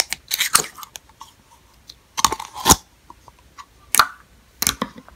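Thick, glossy lotion-and-foaming-soap slime being squished and folded by hand, giving wet, sticky squelches and pops in a few short, irregular bursts.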